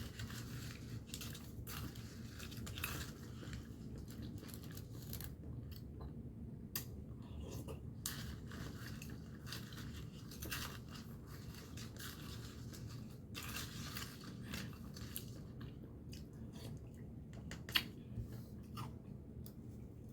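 A person chewing and crunching mouthfuls of banana con yelo, banana with shaved ice, with irregular small crunches and clicks throughout.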